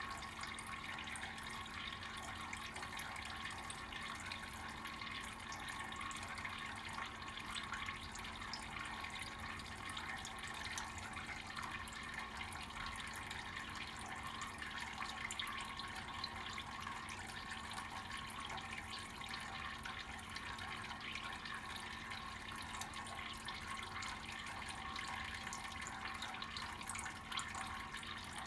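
Water tap running, its stream splashing steadily and without a break.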